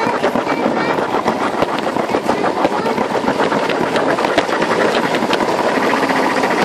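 Lego 9V train motor of the 4558 Metroliner running steadily: a constant whir with rapid, even ticking as the train rolls along its track.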